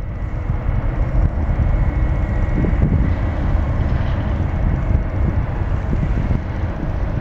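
Airbus A330 jet engines running at taxi power: a steady low rumble with a faint high whine, overlaid by wind buffeting the microphone.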